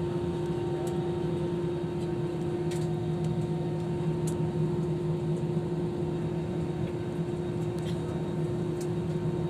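Airliner cabin noise: a steady drone with a constant hum from the engines and air system, with a few faint clicks.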